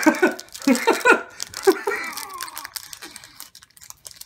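Indistinct voice sounds, like muttering or a giggle, over a run of small sharp clicks and crinkles of handling; the voice fades out after about two and a half seconds and the clicks thin out soon after.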